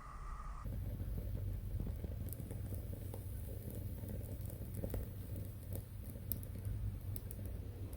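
Background music ends under a second in, giving way to a low steady rumble dotted with scattered light crackles and ticks.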